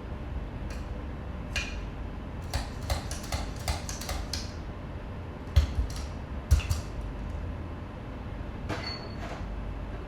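Kitchen handling noises while making coffee: a run of light clicks, two louder knocks about midway, and a brief clink near the end, over a steady low hum.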